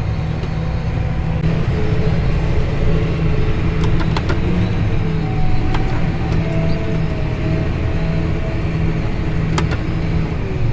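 Tractor engine running steadily under load, a constant low drone with a few faint clicks.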